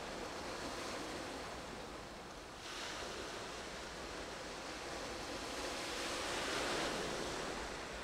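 Sea waves washing in, a steady rushing that swells about three seconds in and again near the end.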